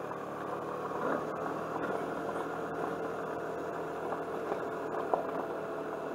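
Suzuki Burgman 200 scooter's single-cylinder engine running at a steady, even hum while riding slowly along a gravel road, with a few brief sharp ticks.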